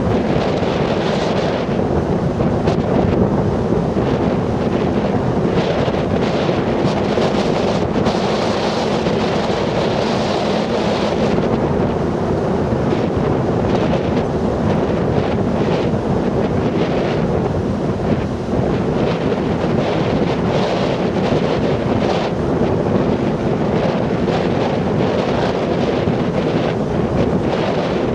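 Strong storm wind buffeting the microphone over the steady rush of heavy surf breaking on the beach. The noise is loud and continuous, with gusts flaring in and out.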